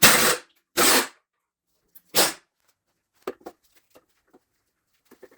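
Three short, harsh noises, each lasting a fraction of a second, then a few faint light clicks: workshop tools being handled.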